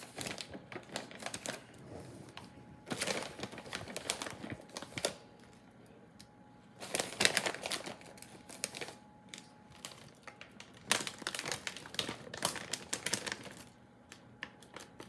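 Frozen broccoli florets tipped from a plastic bag into a dish, a dense clatter of light clicks with the bag crinkling, in about four bursts.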